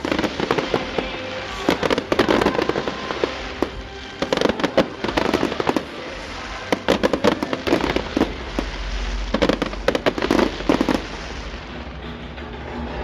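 Aerial fireworks going off: loud bangs and dense crackling that come in clusters every two seconds or so, thinning out near the end, with music playing underneath.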